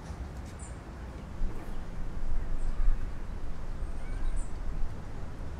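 Wind buffeting the microphone as an uneven low rumble that turns gustier about a second and a half in, with a few faint, brief high bird chirps.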